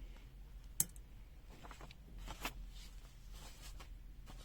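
Faint handling clicks: one sharp click about a second in, then a few lighter taps, as multimeter test probes and resistors are handled on a bench.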